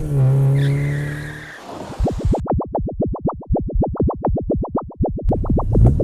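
Cartoon motorbike engine sound effect: a steady low hum that fades out over the first second and a half, then a rapid, even putt-putt of about seven beats a second.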